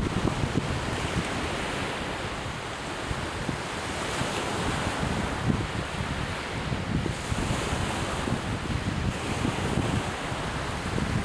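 Surf washing onto a beach, with strong wind buffeting the microphone in low gusty rumbles.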